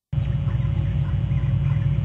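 Steady low rumble of outdoor background noise on a nest-camera microphone, with faint, scattered short chirps of small birds. The sound cuts out for an instant at the very start.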